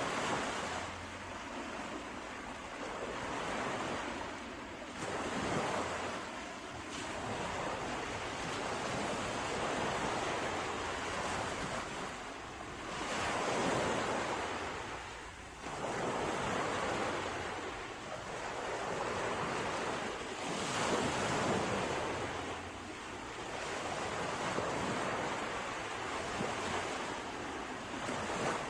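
Ocean waves breaking on a shore, the surf swelling and ebbing every few seconds in an even, continuous wash.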